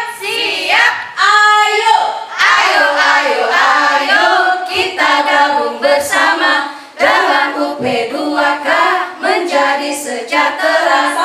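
A group of women singing and chanting a yel-yel cheer song together, loudly and in unison.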